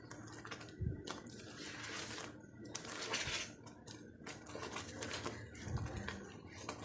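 A ladle scraping and tapping against a non-stick wok while stirring custard that is thickening on the heat after the custard-powder slurry went into the boiling milk: soft, irregular clicks and scrapes.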